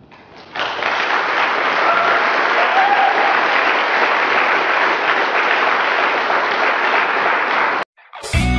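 Audience applauding, starting about half a second in and cut off abruptly near the end. It is followed at once by strummed guitar music.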